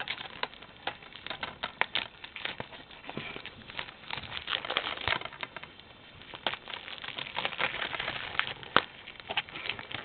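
Plastic DVD case and its wrapping being handled and opened: irregular clicks and taps with crinkling.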